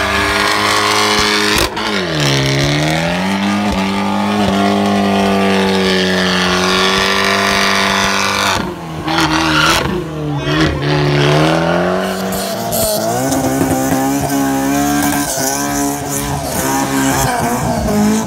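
A car doing a burnout: its engine is held at high revs for seconds at a time, dropping and climbing again a couple of times, over the squeal and hiss of spinning tyres.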